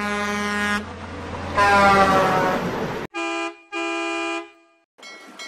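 Semi-truck air horn blasting twice over its engine rumble, the second, louder blast sliding down in pitch. Then a different horn, from the Rio Grande Southern 'Galloping Goose' rail motor car, toots twice briefly.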